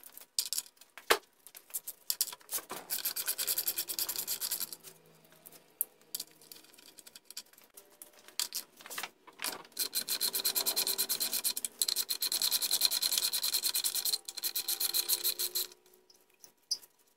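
Ratchet wrench clicking in quick runs as a lower-unit mounting bolt is backed out of an outboard gearcase, with a longer run of ratcheting near the end.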